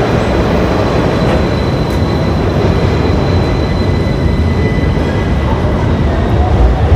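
Metro train running, a loud steady rumble with a faint high whine held over it.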